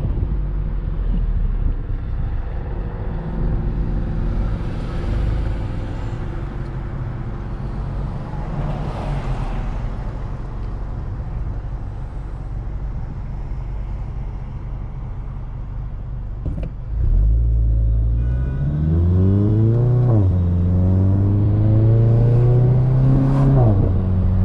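MK7 Volkswagen GTI's turbocharged 2.0-litre four-cylinder heard from inside the cabin, cruising steadily over road noise. About two-thirds of the way in it is put under hard throttle: the revs climb, drop sharply at a DSG upshift, then climb and drop again at a second upshift near the end. The car runs a catted downpipe with the stock cat-back exhaust.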